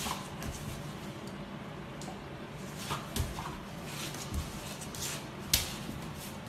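Yellow Labrador scrabbling and rolling on a hard floor while chasing its own tail: scattered claw clicks and light body thumps, with one sharp knock about five and a half seconds in.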